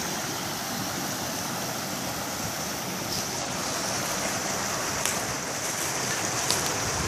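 Steady rushing of a river and its waterfalls, an even hiss, with a few faint clicks in the second half.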